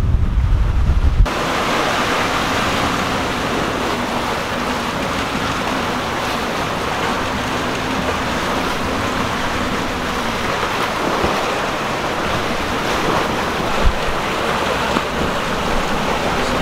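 Sea water rushing and splashing along the hull of a sailing yacht under way, with wind. Heavy wind buffeting on the microphone for about the first second gives way to a steady hiss of water, and there is a single short thump near the end.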